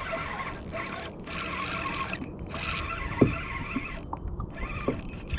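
Steady wind and water noise on the microphone while a hooked fish is reeled in, with a few brief squeaks and knocks from the reel and kayak.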